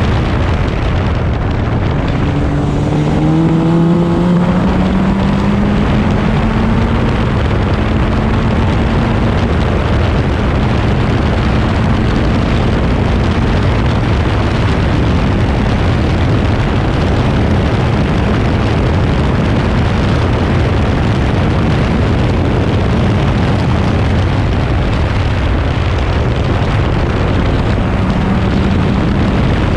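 Crossle 32F Formula Ford's 1600 cc Ford Kent four-cylinder engine at racing speed, heard onboard under heavy wind rush in the open cockpit. About three seconds in, the engine note climbs in pitch as the car pulls hard through a gear.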